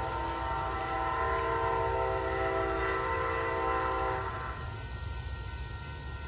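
Amtrak P42 locomotive's Nathan K5LA five-chime air horn sounding one long chord, which cuts off about four and a half seconds in, over the low rumble of the passing train.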